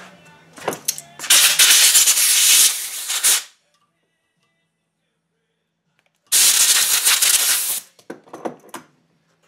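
Sharp metal knocks from hammering hinge pins and bushings into a truck door hinge, with two long bursts of loud harsh noise from a power tool, and a dead-silent cut between them.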